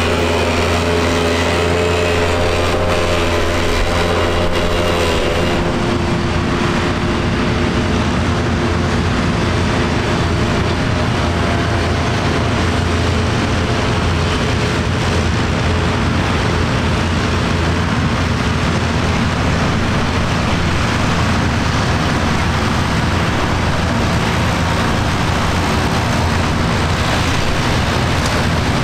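John Deere tractors running steadily under load while a trailed forage harvester chops grass and blows it into a silage trailer. About five seconds in, the sound changes from a steady engine hum to a rougher, noisier machine din.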